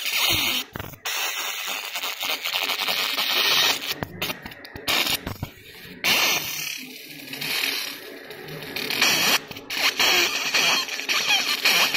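Raycus fiber laser marking machine blackening aluminium: a dense, high-pitched sizzling hiss from the beam on the metal, stopping briefly several times.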